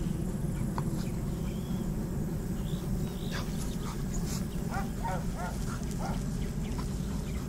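Steady low rumble throughout, like wind on the microphone, with a quick run of short, quack-like animal calls from about three to six seconds in.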